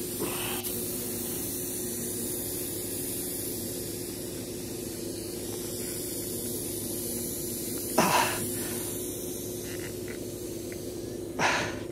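Tow-behind air compressor running steadily, with compressed air hissing through the sprinkler lines. Two short bursts of hiss come about eight seconds in and again near the end.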